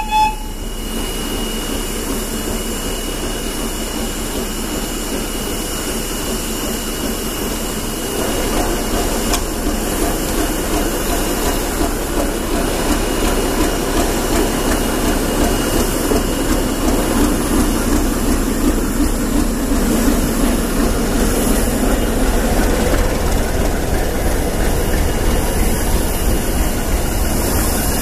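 A locomotive-hauled train rolling slowly past at close range: a T478.1 diesel locomotive's engine running as it goes by, with the wheels rumbling on the rails, growing louder about a third of the way in as the engine comes alongside. A brief horn note sounds at the very start.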